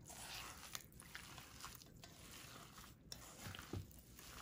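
Faint wet squishing of hands kneading raw ground beef with breadcrumbs, eggs and sautéed onion in a stainless steel bowl, in squeezes about a second apart.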